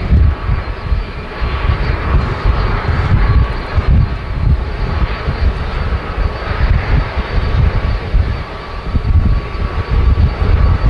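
Airbus A330-200F freighter's twin Pratt & Whitney PW4000 turbofans running at low taxi power as the jet rolls slowly past: a loud, uneven low rumble under a steady high whine.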